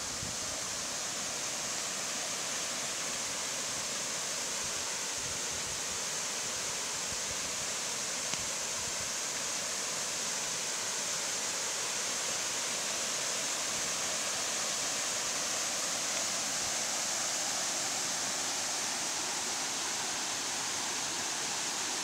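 Small creek waterfall spilling over layered rock ledges: a steady rush of falling water.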